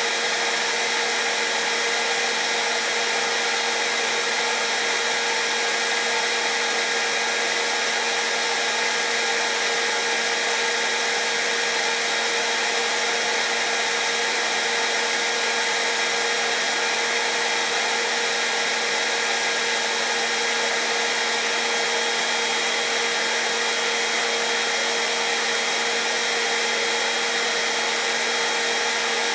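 Hair dryer running steadily: an even rush of air with a constant motor hum.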